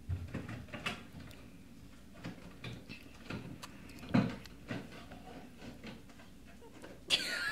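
A dog biting, nosing and pawing at a chunk of ice in snow: scattered faint clicks and scrapes, with one sharper knock about four seconds in. A burst of a person's voice breaks in near the end.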